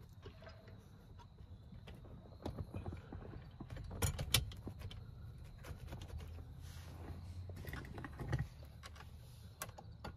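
Scattered metallic clicks and clinks as seat-back springs are hooked back onto the wire frame of a power lumbar support, with a couple of sharper snaps about four seconds in.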